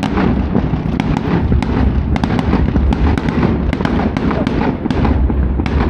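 A fireworks display going off in a rapid, irregular barrage of sharp bangs and crackles, several a second, with a continuous deep rumble underneath.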